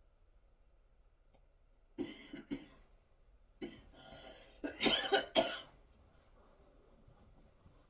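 A person coughing: three short coughs about two seconds in, then a longer run of harder coughs from about three and a half to five and a half seconds in.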